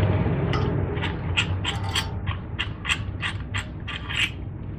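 Brake caliper piston compression tool being worked by hand at the caliper just after the piston has been pushed fully in: a run of sharp mechanical clicks, about three a second, over a steady low hum.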